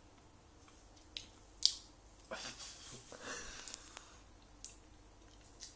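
A person chewing a mouthful of century egg: wet mouth clicks and smacks, the sharpest about one and a half seconds in, with a longer noisy stretch in the middle.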